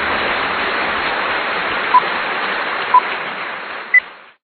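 Steady static hiss with three short electronic beeps a second apart, the third higher-pitched, like a countdown; the hiss fades away near the end.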